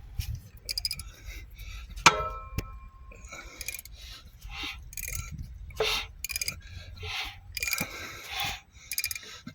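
Ford 5.4 three-valve V8 being turned over by hand, giving irregular metallic clunks and scrapes, with one sharp clang about two seconds in that rings briefly. This is the weird banging noise whose cause is being sought.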